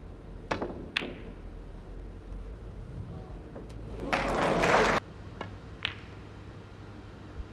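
Snooker balls clicking: a few crisp, sharp clicks of cue tip on cue ball and ball striking ball, spaced out. About four seconds in, a second-long burst of crowd noise cuts off abruptly.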